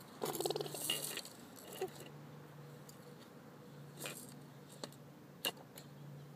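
A toddler's brief voiced grunt or babble, lasting about a second, starting just after the start, then a few faint sharp clicks, over a low steady hum.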